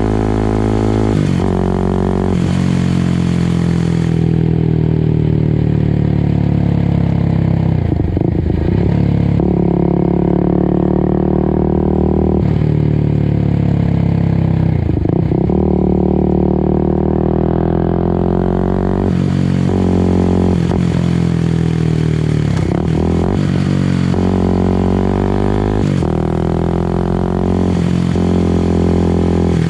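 Kawasaki Ninja 250 SL single-cylinder engine heard close up through a Tridente Spartan F20 aftermarket racing exhaust while riding. The revs rise and fall repeatedly, with short breaks at gear changes and a few drops in pitch where the throttle is closed.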